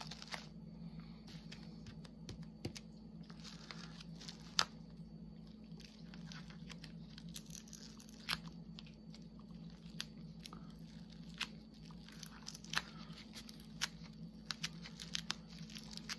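Plastic cling wrap crinkling and giving sharp little clicks as fingertips pick at it and try to peel it off the glue-coated diamond-painting canvas; it is stuck to the glue and hard to get off. A low steady hum runs underneath.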